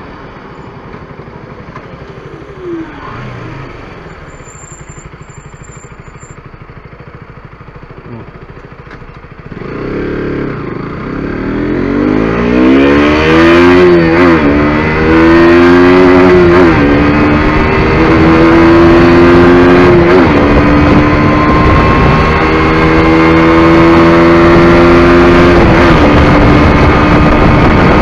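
KTM RC 125's single-cylinder four-stroke engine running at low revs, then from about ten seconds in accelerating hard: its pitch climbs and drops back at each of several upshifts, then holds at high revs.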